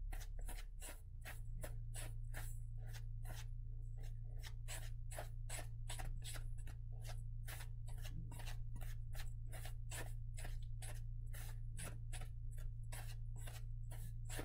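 Silicone spatula stirring a dry mix of flour, salt and coffee grounds in a metal mixing bowl, scraping in quick, even strokes about three a second, over a steady low hum.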